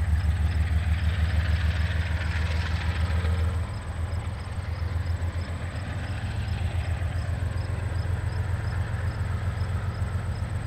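GE diesel locomotives, led by an ES44DC, throbbing low as they rev up, with the level dipping a few seconds in and building again.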